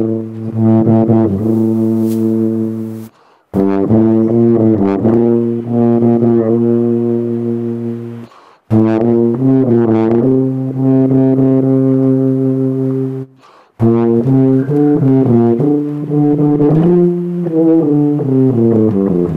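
A tuba played alone: four phrases, each a quick run of notes that settles into a long held low note, with short breaks between them.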